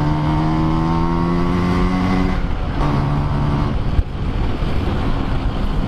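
Two-stroke Vespa scooter engine running under way, its pitch rising slowly for about two seconds, then easing off briefly about halfway through and picking up again.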